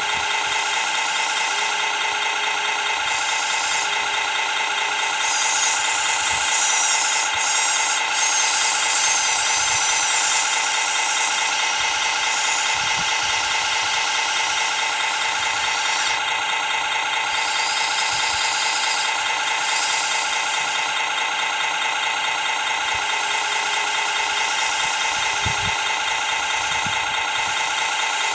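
Radio-controlled hydraulic model excavator running steadily, its pump giving a constant whine with rattling as the arm and bucket move. A few short hums come in near the start and again near the end.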